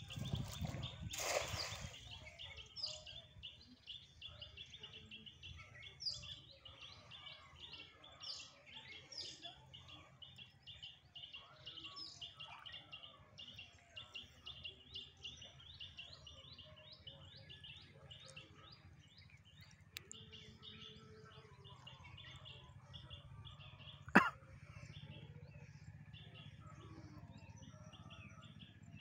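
Outdoor birdsong: one bird repeating a quick high chirp about four or five times a second, with other birds chirping now and then. A brief rushing noise comes about a second in, and a single sharp knock about 24 seconds in.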